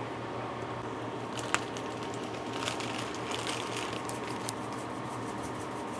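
Kitchen items and packaging being handled: soft rustling and crinkling, with a sharp click about a second and a half in and another near the end, over a steady low hum.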